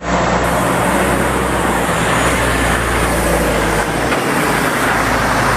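Steady engine and road noise of a motor vehicle, a dense rushing sound over a low hum. It starts abruptly and cuts off abruptly.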